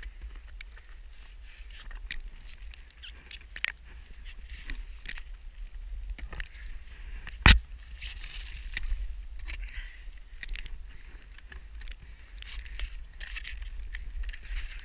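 Ice axe and boots working on snow-covered rock: scattered scrapes, crunches and knocks, with one sharp, loud strike about seven and a half seconds in, over a steady low rumble.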